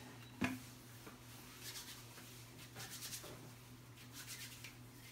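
Faint rubbing and rustling from hands and a prosthetic leg being handled, with one sharp knock about half a second in. A low steady hum runs underneath.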